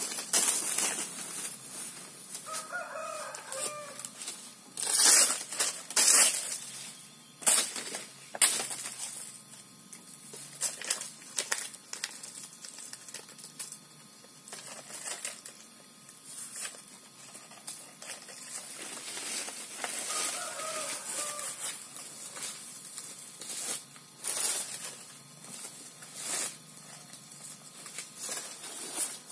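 Dry banana leaves and stalks being torn and pulled by hand: a run of sharp rustling cracks, loudest a few seconds in. A chicken calls twice, a few seconds in and again about twenty seconds in.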